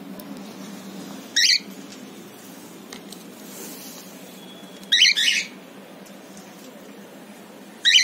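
Cockatiel calling: three short, loud calls, one about a second and a half in, a doubled call at about five seconds and another near the end.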